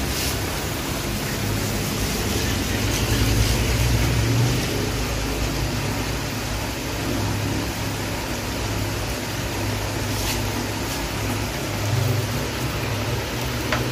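Steady rush of heavy rain, with a low rumbling hum underneath.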